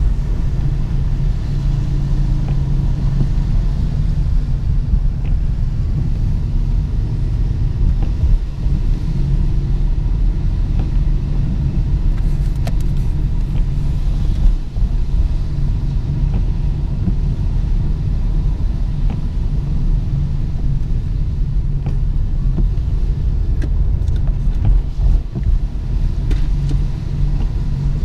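Steady low rumble of a car driving, its engine and road noise heard from inside the cabin, with a few faint ticks here and there.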